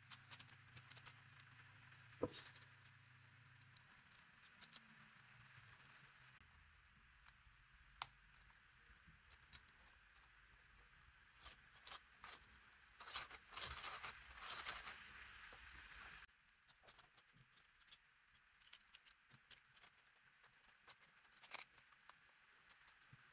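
Faint clicks and scraping of 3D-printed plastic engine parts being handled and fitted together by hand. There is a sharper click about two seconds in and a busier patch of clicking and rattling around the middle.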